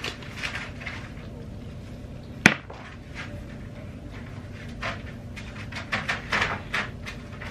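Fingertips patting and rubbing product into the skin of the face: short soft brushing pats, coming in a quick cluster near the end, with one sharp click about two and a half seconds in.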